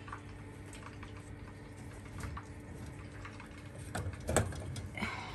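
Steady low hum of an oven, with scattered light ticks and one louder knock a little after four seconds in.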